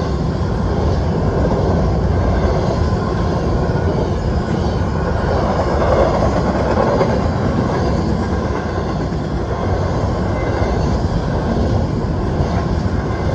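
Freight train rolling past, a steady loud rumble of cars running on the rails.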